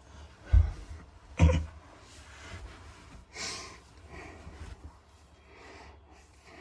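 Two dull thumps about a second apart near the start, then a few soft breaths.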